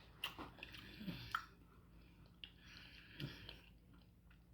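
Faint close-up chewing of soft, slow-cooked beef bone marrow with onion and garlic, with a few small clicks of the mouth.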